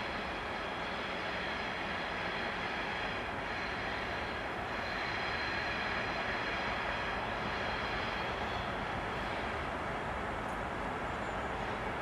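Soviet-built 2M62 twin-section diesel locomotive running under load, its two-stroke V12 diesels giving a steady drone as it hauls a freight train slowly toward the listener, with the rumble of the rolling wagons beneath. The sound grows slightly louder midway.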